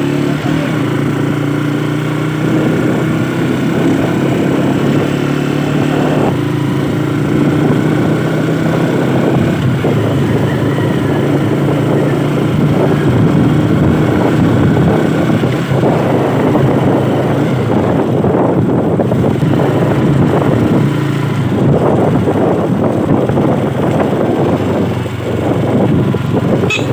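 Motorcycle engine running at a fairly steady speed while riding, with a rushing wind noise over it.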